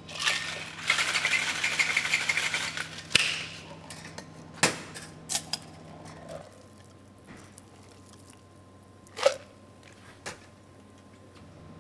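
Ice rattling inside a metal cocktail shaker being shaken for about three seconds. A few sharp clinks and knocks of the shaker and glasses on the bar follow.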